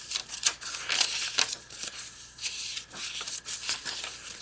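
Paper pages of a handmade journal being turned and handled, rustling and crinkling with many short, irregular paper flicks and rubs.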